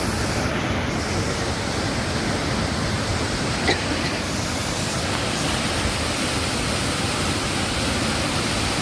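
Waterfall with a steady, even rush of falling water, and one brief sharp click near the middle.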